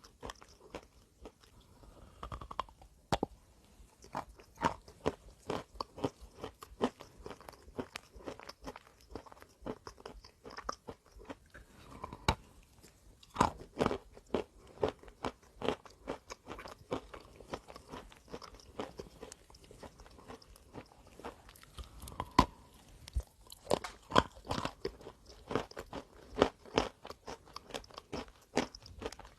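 A person biting into and chewing a hard, chalky piece: dense, irregular crunching and crackling, with a few sharper bites standing out.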